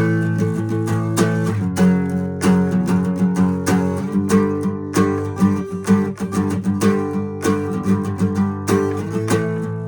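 Guitar music: a run of plucked and strummed notes over held chords.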